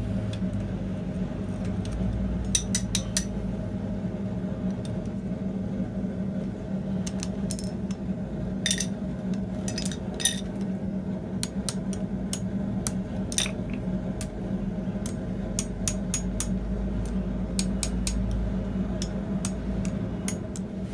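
Light metallic clinks and taps of steel tongs and a bending bar against a hot iron bar being wrapped into a coil on an anvil, scattered irregularly, over a steady low hum.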